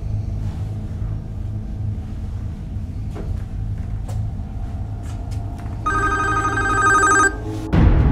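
A steady low rumble. About six seconds in, a mobile phone rings with an electronic ringtone that lasts about a second and a half, then a loud low boom near the end.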